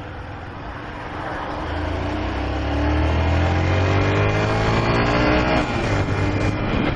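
Honda CG 125 Fan motorcycle's single-cylinder engine pulling up through the revs as the bike accelerates, its pitch climbing steadily for a few seconds, then dropping suddenly about five and a half seconds in, with steady wind noise.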